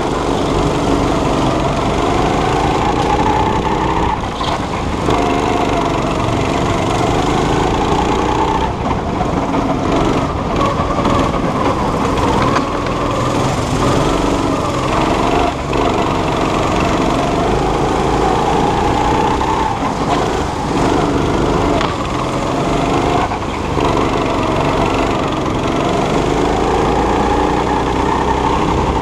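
Small go-kart engine running hard at close range, repeatedly climbing in pitch as the kart accelerates and dropping back as it slows for the corners.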